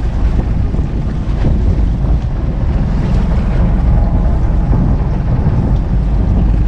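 Steady low rumble of a fishing boat's engine running, mixed with wind buffeting the microphone.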